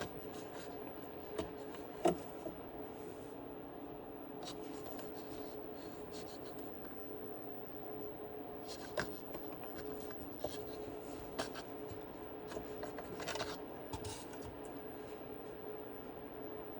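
A hose and plastic coffee-maker parts being handled: scattered light clicks, taps and rubbing over a steady hum.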